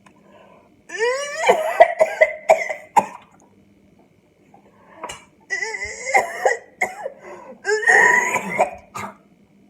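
A person gagging and coughing in three bouts, the gags rising in pitch, with sharp coughs between them: a gag reflex set off by a raw egg.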